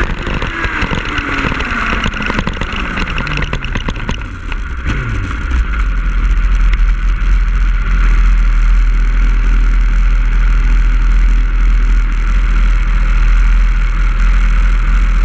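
2005 Yamaha YZF-R1 inline-four sport bike engine decelerating as the bike slows, its revs falling steadily over the first five seconds or so, with wind noise on the microphone. The engine then settles into a steady idle once the bike has stopped.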